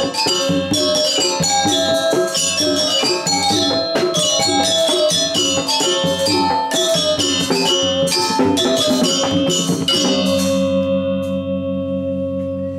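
Balinese gamelan pelegongan ensemble playing fast, dense figuration on bronze metallophones with kendang drums. About ten seconds in, the playing stops and the last struck notes ring out, with a low gong tone pulsing slowly as it dies away.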